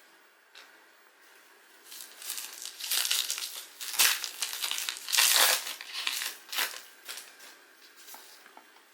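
Plastic trading-card pack wrapper crinkling and being torn open by hand, in a run of rustling bursts that are loudest around four and five seconds in.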